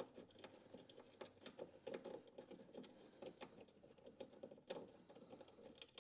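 Faint, irregular small clicks and taps of a hand tool working a 10 mm nut off a window track inside a door.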